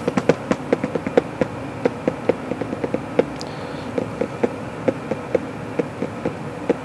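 Fingertips tapping lightly on the tabletop and cards, irregular taps about three or four a second, over a faint steady hum.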